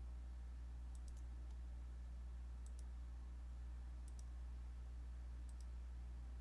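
Faint computer mouse clicks, coming in quick pairs about four times, over a steady low electrical hum.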